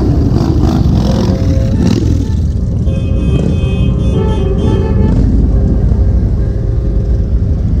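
Cruiser motorcycles riding past one after another at low speed, their engines rumbling steadily.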